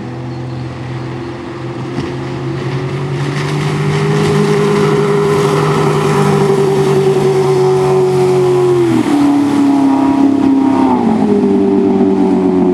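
Tohatsu 140 PS four-cylinder inline two-stroke outboard motor running at speed, getting louder over the first few seconds. Its pitch drops about nine seconds in and climbs back about two seconds later.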